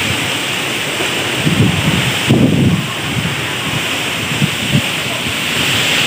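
Strong wind rushing through trees, with gusts buffeting the microphone in low rumbles; the strongest gust comes about two and a half seconds in.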